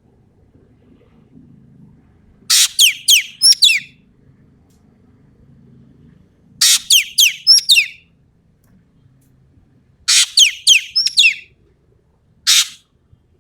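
Common green magpie (ekek keling) calling loudly: three bursts of four or five quick, harsh notes that each sweep downward, about four seconds apart, then a single short note near the end.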